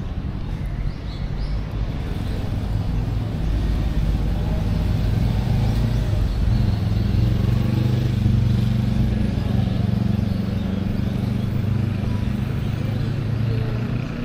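A motor vehicle's engine hum passing close by on the street, growing louder to a peak about halfway through and then fading, with a few bird chirps near the start.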